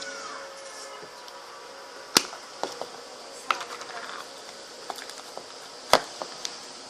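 Sharp clicks and light taps of small slime-making items being handled on a table, the two loudest about two and six seconds in, over a faint steady hiss.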